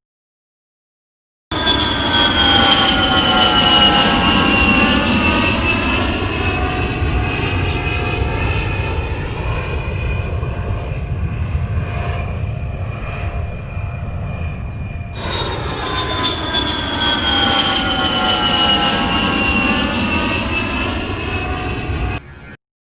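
Jet airplane engine sound effect: a steady rushing roar with a high whine falling in pitch. It starts abruptly, restarts from the beginning partway through as a repeated clip, and cuts off near the end.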